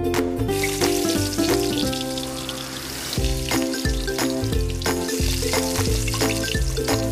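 Chopped garlic sizzling in hot oil in a wok, starting about half a second in as it is tipped in, then stirred with a wooden spatula. Background music with plucked notes plays throughout.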